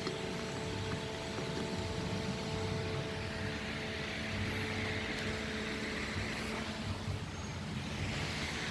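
Freshly rebuilt diesel engine running steadily on its first test run, a low even rumble with a faint steady whine over it.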